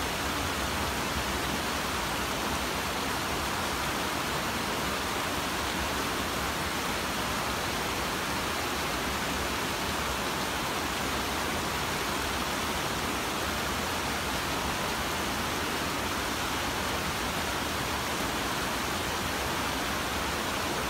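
Mountain stream running over rocks in small cascades: a steady rush of water.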